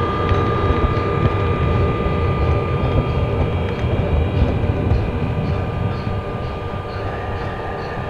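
Gauge 0 model train running on the layout track: a continuous low rumble of wheels on rails, with a steady high whine through it.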